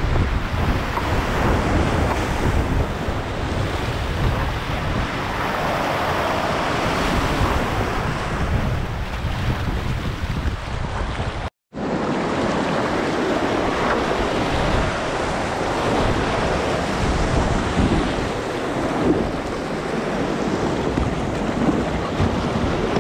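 Whitewater creek rapids rushing and splashing right around a kayak, with low rumbling noise from the close microphone in the first half. The sound drops out for an instant about halfway through.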